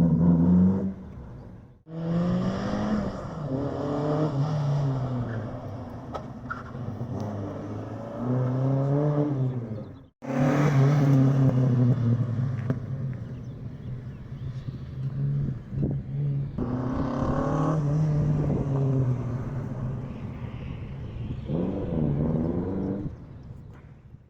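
Alfa Romeo Giulia Super 1300's twin-cam four-cylinder engine pulling the car along, its pitch climbing under acceleration and dropping back at each gear change, several times over.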